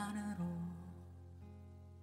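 Soft ballad accompaniment in a pause between sung lines: a note slides up right at the start, then quiet held notes, with a guitar-like plucked sound.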